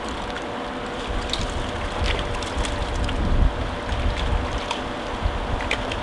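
Sea waves washing over concrete steps: a steady rush of water with scattered splashes, swelling about three seconds in, over a low wind rumble on the microphone.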